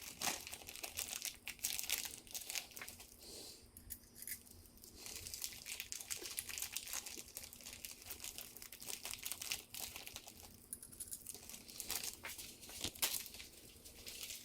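Crinkling, rustling handling noise with many small clicks and taps as parts are handled at the bench, over a faint steady hum.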